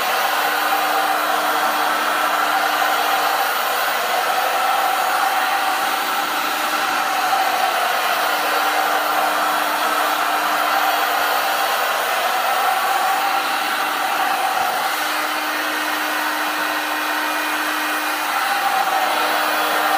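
Electric heat gun blowing steadily, its fan motor running with a faint low hum, as it heats a 1-inch schedule 40 PVC pipe until the plastic goes soft and flimsy enough to press flat into a bow limb.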